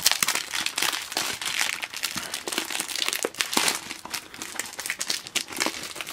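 Clear plastic bag crinkling and rustling as hands handle a Blu-ray case and slide it out of the bag, in quick irregular crackles.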